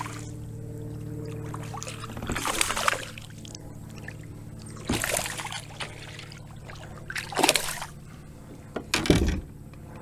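A hooked smallmouth bass splashing and thrashing at the water's surface beside a kayak as it is reeled in and landed, in four short bursts a couple of seconds apart.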